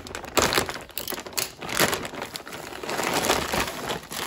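Clear plastic bag holding metal band clamps crinkling and rustling as it is handled, in a run of uneven crackles.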